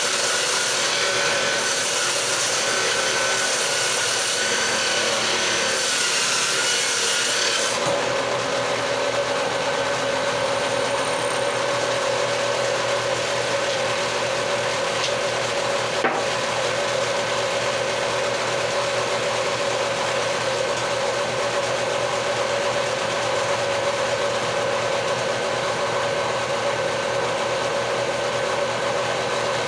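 Electric woodworking power tool running steadily with a motor whine while shaping a wooden door jamb. For about the first eight seconds there is a stronger, rougher hiss of the tool cutting into the wood; after that the hiss drops and the tool runs on more evenly. A single sharp click comes about halfway through.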